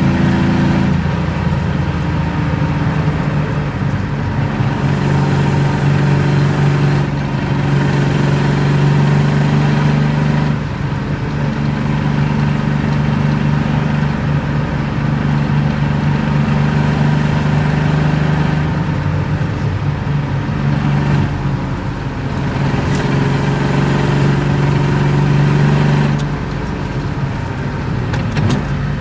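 BMW M50B25 2.5-litre straight-six with aftermarket headers and exhaust, heard from inside the cabin while driving: it holds steady revs for stretches, and its note changes pitch several times, with brief drops in level about ten seconds in and near the end.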